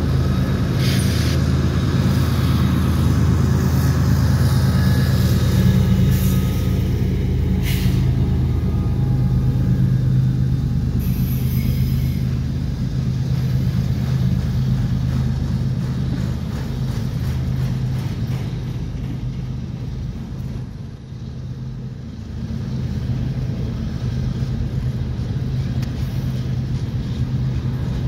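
CSX freight train passing close. The lead diesel locomotive's engine gives a steady low drone, with a few sharp clicks in the first several seconds. The drone fades after about ten seconds, and the freight cars then roll by with continuous wheel-on-rail rumbling.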